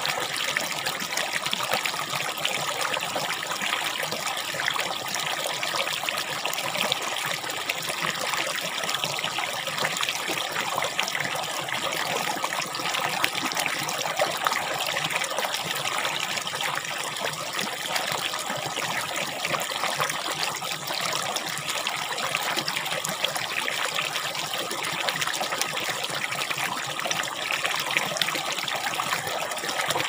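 Water of a shallow, rocky stream trickling steadily: an even, unbroken rush of water with no pauses.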